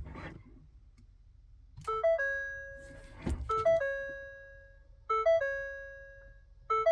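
Ford F-150 warning chime sounding over and over: a quick run of short tones ending in one held tone, starting about two seconds in and repeating about every one and a half seconds. It goes with the instrument cluster's fault warnings in a 'Stop Safely Now' no-start condition. A short knock comes about three seconds in.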